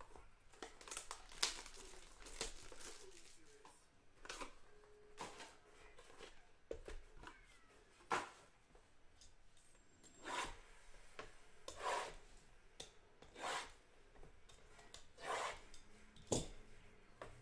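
Small cardboard trading-card boxes being handled: a series of short rubs and scrapes as they are picked up, slid and set down on a mat.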